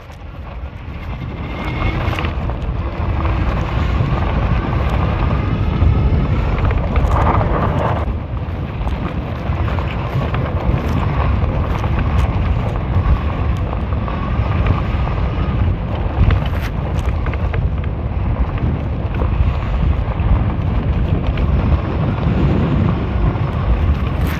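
Heavy wind buffeting the microphone of an e-bike ridden at speed: a loud, steady low rumble that builds over the first couple of seconds.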